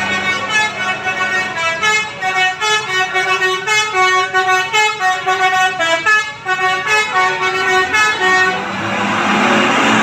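Bus telolet horn, a multi-trumpet air horn, playing a rapid tune of short notes, about three to four a second. Near the end the tune stops and the bus passes close, its engine and rushing noise swelling loudly.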